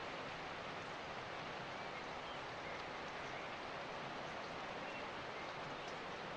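Steady, even hiss of rain falling, with a few faint short high chirps over it.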